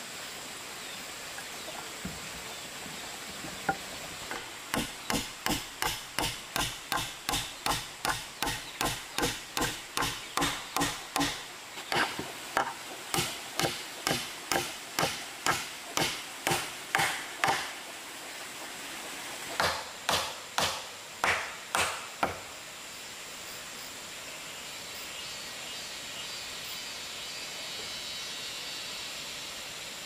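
A hand tool striking wood in a steady run of about two and a half blows a second for some thirteen seconds, then four more blows after a short pause.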